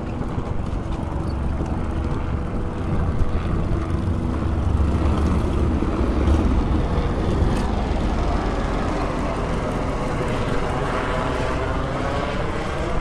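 Helicopter flying overhead: a steady low rotor and engine rumble that swells through the middle and eases off toward the end.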